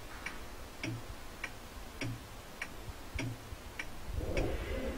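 Clock ticking steadily, an even tick-tock at a bit under two ticks a second.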